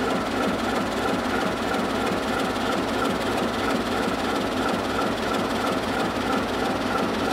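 Two coupled ČD class 751 diesel locomotives, their six-cylinder ČKD diesel engines running steadily with no exhaust silencers fitted, so the exhaust is unmuffled.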